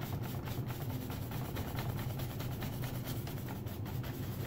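A bristle brush scrubbing oil paint on a stretched canvas in quick short strokes, about five a second, blending and softening a painted edge, over a steady low hum.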